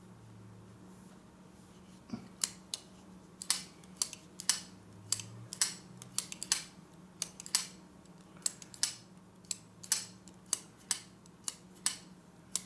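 Kizer Begleiter XL plunge-lock folding knife, running on ceramic caged pivot bearings, flipped open and dropped shut over and over: a string of sharp metal clicks, two or three a second, starting about two seconds in.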